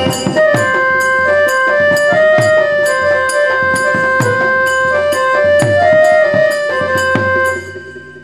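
Instrumental folk accompaniment for Danda Nacha dance: a melody of held, stepping notes on a keyboard-like instrument over a steady drum beat of about three strokes a second, fading out near the end.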